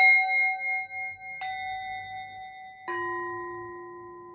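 Bell-like chime tones struck one after another, about every second and a half, three strikes at different pitches, each left ringing and slowly fading.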